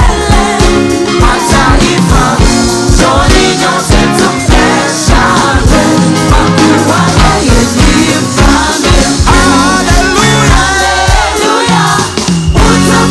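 Live gospel worship music: a group of singers over a band with a steady drum beat.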